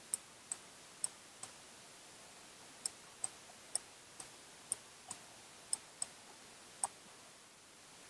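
Computer mouse button clicks, about a dozen, mostly in press-and-release pairs about a third of a second apart, as when clicking and dragging.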